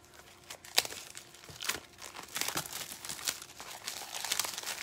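Clear cellophane wrapping crinkling and rustling as a craft kit is handled and pulled out of it. There is a sharp crackle about a second in, and the crinkling grows busier in the second half.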